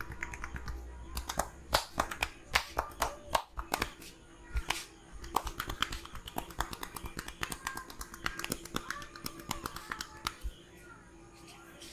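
Rapid percussive hand taps and slaps of a barber's head massage, heard as sharp clicks in quick irregular bursts of several a second.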